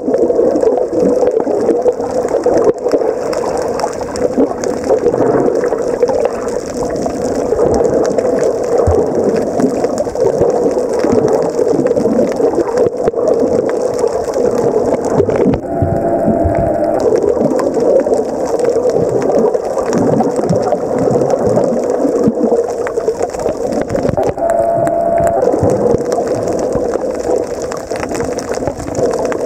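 Steady rush of water noise picked up by a submerged camera. Twice, for about a second each, a brief humming tone breaks in.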